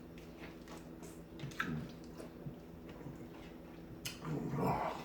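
A person chewing and swallowing sour lemon pieces: small wet clicks and squishes, with a louder throaty swallowing sound about four seconds in.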